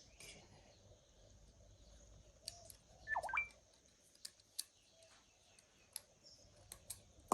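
Light scattered clicks and ticks of a steel piston ring being spiralled into its groove on a piston by hand. A short chirp sounds about three seconds in.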